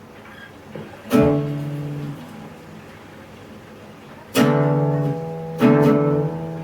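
Acoustic guitar strummed chords: one strum about a second in that rings and fades, then two more strums a little over a second apart near the end, each left ringing.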